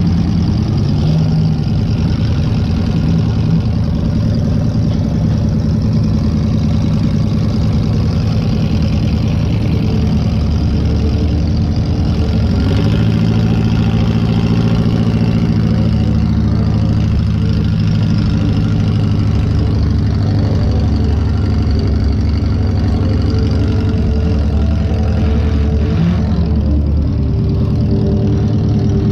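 Chevy Lumina's 2.5-litre Iron Duke four-cylinder engine running loudly and mostly steadily, heard from inside the stripped car, with small changes in pitch around the middle and near the end.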